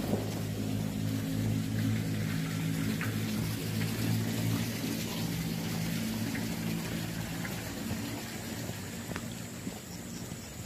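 A steady low machine hum that fades away after about eight seconds, over a constant background hiss, with a few light clicks.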